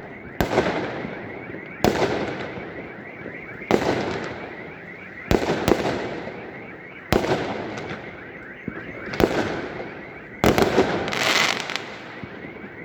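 Fireworks going off: a string of sharp bangs about every one and a half to two seconds, each trailing off in a fading echo, with a double bang about 5 s in and a quick cluster of bangs near the end.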